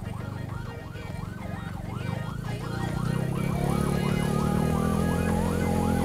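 Hearse siren wailing in quick up-and-down sweeps, about two a second. From about halfway through, a steady low drone grows louder beneath it.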